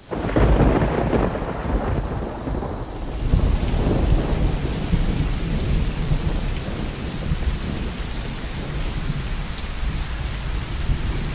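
A thunderclap that breaks in suddenly and rumbles for about three seconds, then heavy rain falling steadily.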